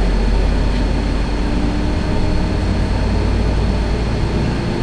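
Steady low rumble of a tour coach's engine, heard from inside the passenger cabin, with a faint steady hum setting in about a second in.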